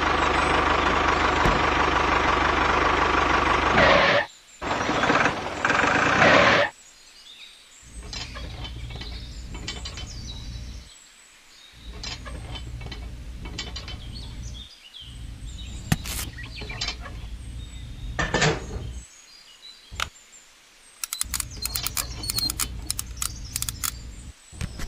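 Light clicks and taps of small metal parts as a miniature cultivator is fitted by hand to a toy tractor's hitch springs and bolts, over a low steady hum. The clicks are scattered and come more often near the end. A loud full sound fills the first few seconds and stops in broken bursts about six or seven seconds in.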